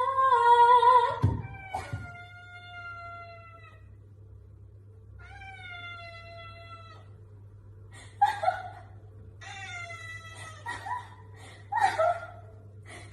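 A cat meowing over and over: two long, drawn-out meows that fall in pitch, then a quicker run of shorter meows near the end. A short, loud pitched tone opens the stretch.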